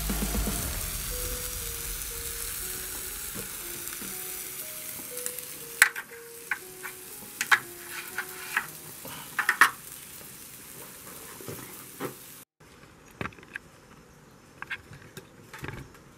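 Food sizzling as it fries in a pan, the sizzle slowly fading; from about six seconds in, sharp clicks and scrapes of a utensil stirring in the pan.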